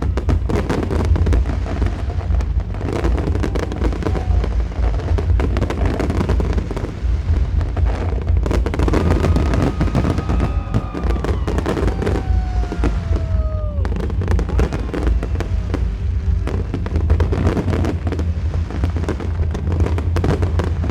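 New Year fireworks display: a dense, continuous barrage of crackles and bangs over a steady low rumble.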